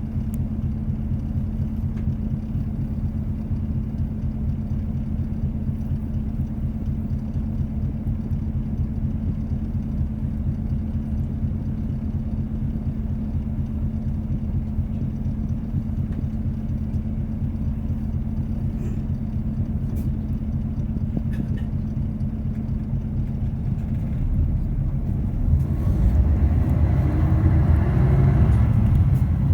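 City bus engine heard from inside the cabin, running with a steady low hum. About 25 seconds in it grows louder and rougher as the engine picks up.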